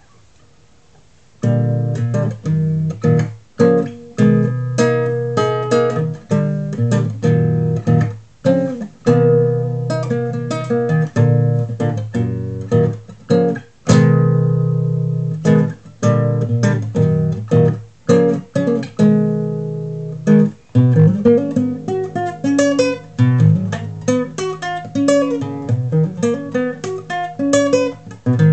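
Classical guitar played fingerstyle: chords and plucked notes with sharp percussive attacks, starting after a short pause about a second and a half in. About halfway through one chord is left ringing and dies away, and the later part turns to quicker runs of single notes.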